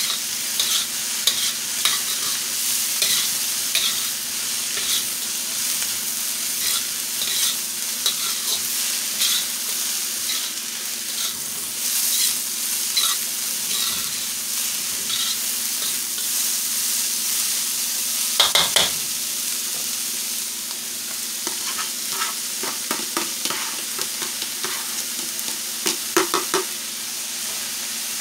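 Cabbage and onion sizzling in a hot steel wok, stirred and tossed with a metal ladle that scrapes and ticks against the pan. A few louder metal knocks come a little past halfway and again near the end.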